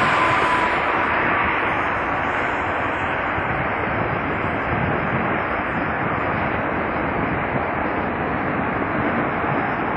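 Turbofan engines of a UPS McDonnell Douglas trijet freighter running as it moves away: a steady rush, with a faint whine that falls slightly and fades in the first second or two.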